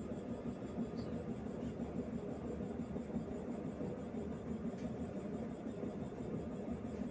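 PAZ 32054 minibus's V8 petrol engine, converted to run on gas, idling steadily with the bus standing, heard from inside the passenger cabin.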